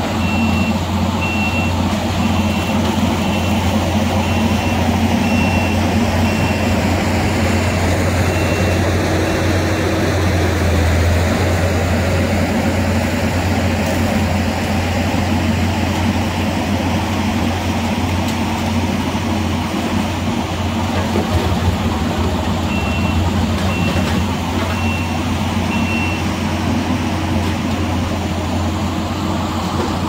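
Skid steer engine running steadily under load, driving a brush mower on its front. Its reversing alarm beeps about once a second for the first nine seconds or so, and again four times about three quarters of the way through.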